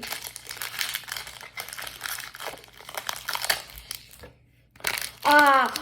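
Crinkling and tearing of a trading-card pack's wrapper as it is torn open, lasting about four seconds. It stops briefly, and a voice comes in near the end.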